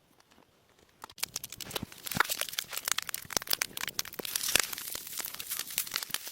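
Dense, irregular crinkling and crackling of material being handled, starting about a second in after near silence.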